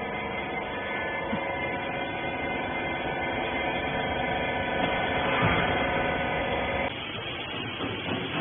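Hydraulic rag baler's electric motor and pump running with a steady whining hum that gets slightly louder. The whine cuts off about seven seconds in, leaving a lower hum.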